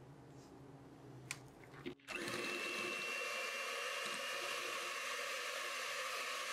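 Electric hand mixer switched on about two seconds in, its motor running steadily with a high whine as the twin beaters whip whipped cream in a glass bowl.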